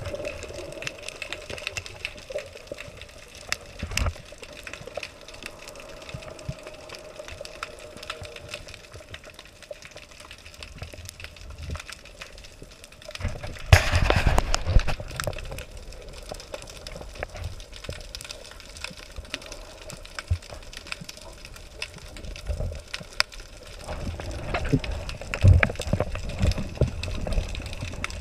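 Underwater sound at a shallow dive site: a constant crackle of sharp clicks, snapping shrimp, with a faint steady hum in the first several seconds. A diver's exhaled bubbles rush loudly about halfway through and again near the end.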